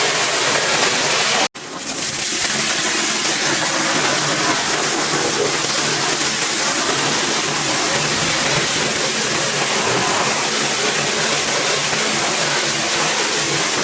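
Large pressure washer spraying: a steady hiss of the water jet over the hum of its pump motor. The sound cuts out abruptly for a moment about a second and a half in, then swells back.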